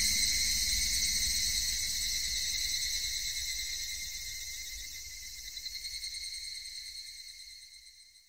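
Steady high-pitched trill of crickets, fading out gradually to nothing near the end.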